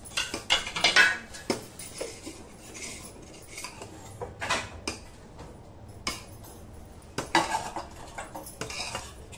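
Steel ladle scraping and clinking against a stainless steel pot as milk is stirred, in irregular bursts, loudest about a second in.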